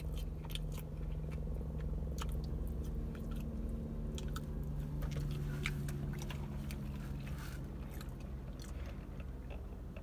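Close-miked chewing of grilled chicken: wet mouth clicks and smacks, with a few bites, thinning out near the end. A steady low hum runs underneath.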